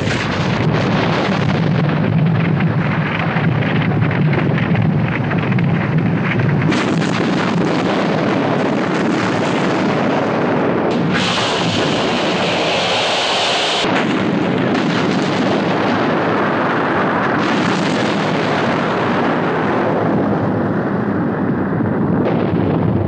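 Movie sound effects of a volcanic eruption: a loud, continuous roar of explosions, with a hissing stretch about halfway through.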